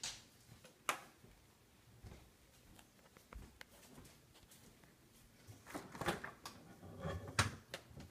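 Scattered faint clicks and knocks of things being handled, with louder bunches of knocks and rustling about six seconds in and again near seven and a half seconds.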